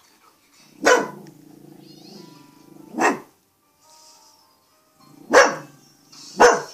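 Pet dog barking four times, single sharp barks spaced about one to two seconds apart, with a low steady rumble between the first two barks.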